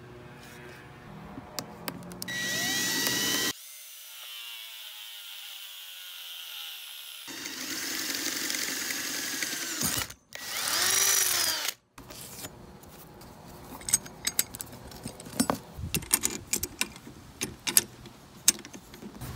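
Handheld power drill boring through a steel shelf standard in several separate runs, its pitch sliding as the speed changes. In the second half come scattered small clicks and knocks of hardware being handled.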